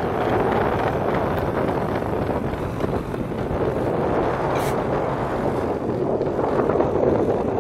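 Steady wind buffeting the microphone aboard a boat running across open sea, over the rush of the hull through the water.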